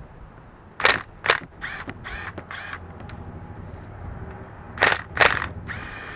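Impact wrench working in short bursts, backing out the output housing bolts of an LT230 transfer case. Two sharp hammering bursts come about a second in, then three shorter buzzes, then two more hammering bursts near the end followed by a longer spin.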